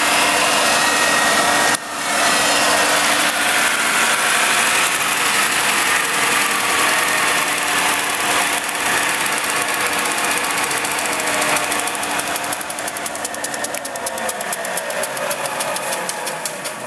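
Scantool belt grinder running loud and steady with a hissing grinding sound, a brief dip about two seconds in. In the last few seconds it quietens and its pitch falls, as if the belt is slowing down.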